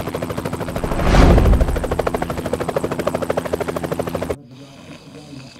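Helicopter rotor chopping in a fast, even beat. It swells louder about a second in, then cuts off abruptly a little over four seconds in.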